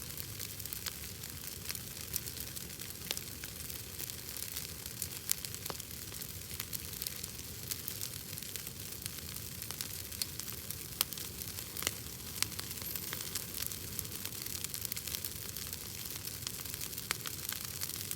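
Bonfire of burning wood crackling, with a steady hiss and frequent irregular sharp pops, a few of them louder.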